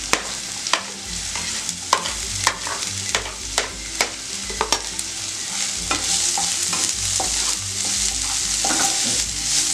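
Chopped capsicum, onion, garlic and ginger sizzling in hot oil in a nonstick frying pan, with sharp clicks of a spoon scraping the vegetables off a plate into the pan during the first half. The sizzle grows stronger about six seconds in as the vegetables are stirred with a wooden spatula.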